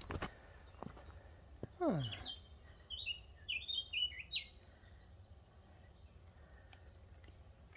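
Small woodland birds singing: a burst of short high chirps in the middle and quick high descending note runs near the start and end. There is a footstep on the trail at the very start, and about two seconds in a brief low sound slides down in pitch.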